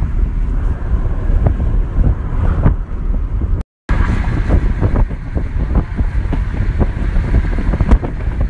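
Wind buffeting the phone's microphone along with road noise from a moving car, a loud steady rush with crackles. It drops out completely for a moment a little under four seconds in.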